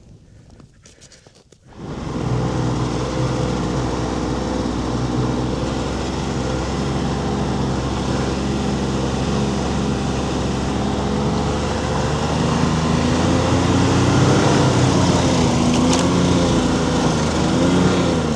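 Ski-Doo snowmobile engine running under a heavy load while towing a komatik sled of lumber. It comes in suddenly about two seconds in, then runs steadily, rising a little in pitch in the later part.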